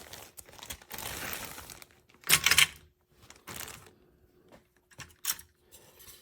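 Thin plastic parts bag crinkling and rustling in irregular handfuls as plastic model parts are pulled out of it, with a louder crinkle about two and a half seconds in and a few light clicks.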